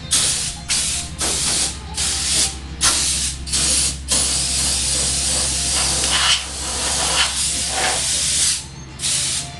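Compressed-air blow gun blasting dirt off a riding mower: a run of about six short hissing blasts, then one long blast of about four seconds, and a last short blast near the end.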